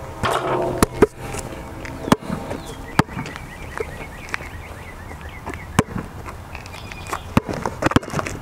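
Basketball bouncing on an asphalt court: single sharp bounces spaced a second or more apart, with a few coming close together near the end as dribbling starts.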